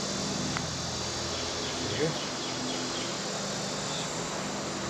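Steady outdoor insect buzzing over a low, even hum, with a faint tick and a short faint chirp about two seconds in.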